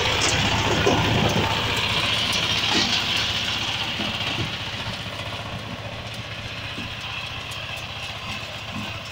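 Power weeder's 9 HP diesel engine running steadily, growing quieter about four seconds in.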